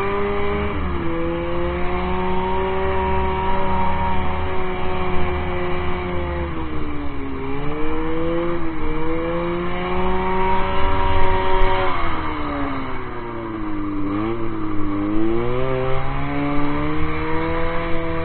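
1978 Polaris Gemini snowmobile's twin-cylinder two-stroke engine running under way, its pitch holding steady, then sagging and climbing again a few times as the throttle is eased off and opened.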